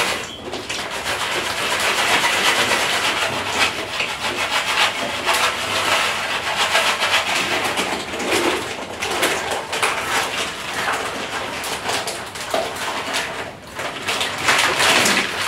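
Plastic snack packets crinkling and rustling as they are handled and snacks are picked out of them: a dense, continuous crackle that dips briefly near the start and about three-quarters of the way in.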